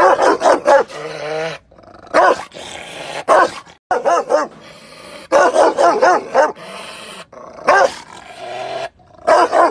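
Rottweiler barking angrily, loud barks coming in quick runs of two to four, broken by sudden cut-offs between spliced clips.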